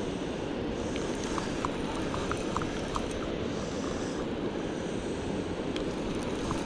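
Steady rush of fast, high river water churning below a dam, with a few faint light ticks in the first half.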